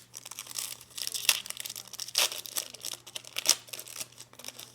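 Trading cards and their foil pack wrapper being handled: irregular crinkling and rustling, with sharper crackles about a second in, two seconds in and three and a half seconds in, over a faint steady hum.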